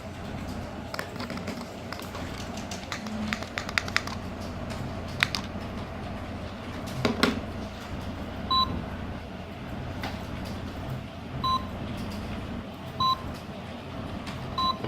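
Series of clicks and taps, then four short single-tone electronic beeps from a KERUI G19 alarm panel, spaced irregularly one to three seconds apart, like keypad button-press confirmations.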